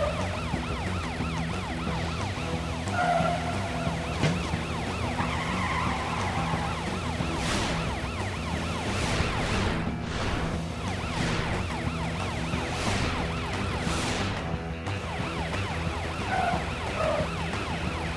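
Cartoon police car siren wailing over background music, with several quick whooshes in the second half.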